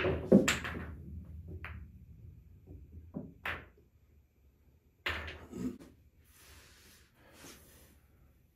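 Pool balls just after a nine-ball break: sharp clacks of balls striking each other and the cushions, with a low rumble of balls rolling across the cloth, then scattered single clicks as they slow down over the first few seconds. Another pair of knocks comes about five seconds in, followed by faint handling noise.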